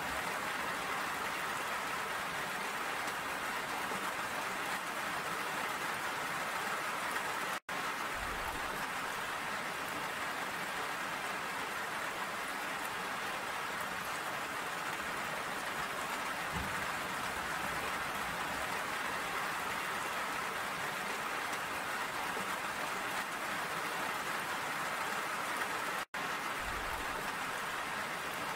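Steady rain falling, an even hiss without let-up. The sound cuts out for an instant twice, about a quarter of the way in and near the end.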